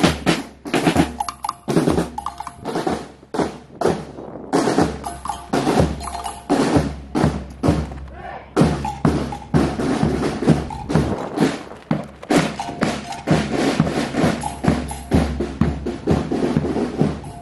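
Marching drum corps of snare drums and a bass drum playing a fast, steady cadence with rolls.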